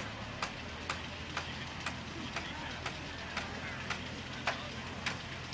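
Distant hammering on an earthship building site: sharp, irregular knocks about two a second, over a low steady hum.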